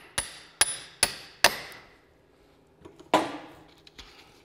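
Hammer tapping on the bolt left on the end of a Pontiac's front half shaft, driving the CV-joint shaft out of the wheel hub's splines: four sharp metallic strikes about 0.4 s apart, each with a brief high ring, then another knock about three seconds in.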